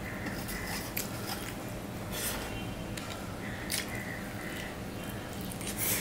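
Eating by hand: fingers squishing and mixing rice with egg and onion fry on a steel plate, and open-mouthed chewing, with a few short wet smacks spread through.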